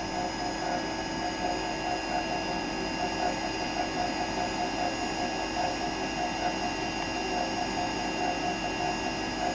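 Small laboratory spray dryer running: a steady mechanical hum with a fast, even ticking pulse from its working parts.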